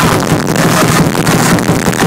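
Loud live electronic drum-and-bass music from a band on stage, recorded from the crowd with poor, distorted sound.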